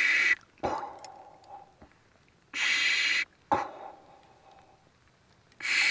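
A person breathing in short, regular breaths, three of them about three seconds apart, each followed by a sharp click.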